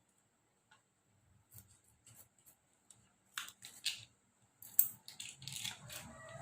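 Faint scattered clicks, then sharper clicks and taps from about halfway through, turning into dense clattering and rustling near the end: handling the sweet soy sauce (kecap) container and kitchen utensils. A faint steady high-pitched whine runs underneath.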